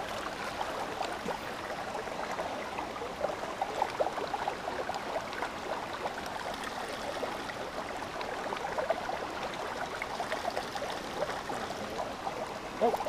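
Shallow, clear creek running steadily over rocks and cobbles: an even babble of moving water.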